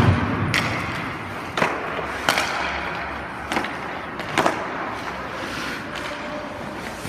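Ice hockey goalie's skate blades scraping and cutting the ice in sharp pushes and stops, about six times, the first the loudest, over a steady hiss of blades gliding.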